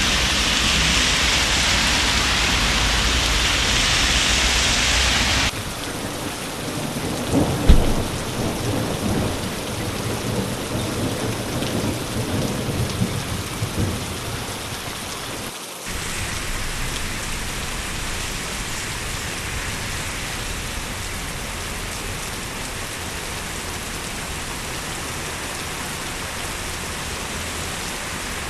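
Heavy rain pouring steadily, its level changing abruptly twice. Thunder rumbles with a sharp loud clap about eight seconds in.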